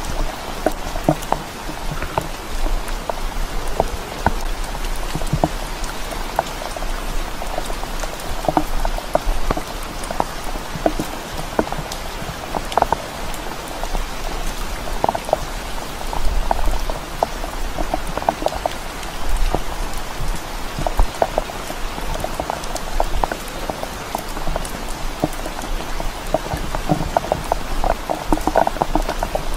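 Steady rain falling through the forest, with many separate drops ticking sharply close by.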